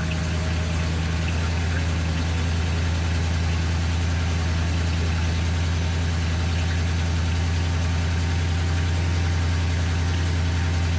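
1973 Ford F100's V8 engine idling steadily just after its first start-up following a long lay-up, running smoothly without any warm-up.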